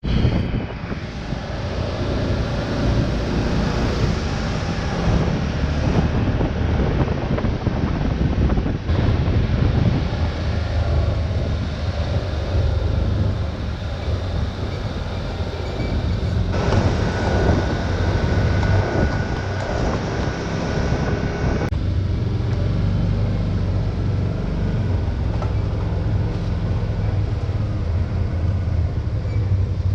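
A vehicle's steady low engine rumble and rushing ride noise, with a brighter, busier stretch in the middle.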